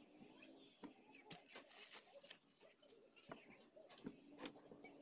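Near silence with faint, scattered clicks and rustles from hands handling the wiring on a CRT TV chassis.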